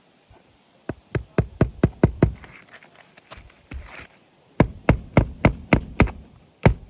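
Hammer driving a roofing nail into a shingle: a run of about six quick strikes, a pause of about two seconds, then another run of about seven strikes.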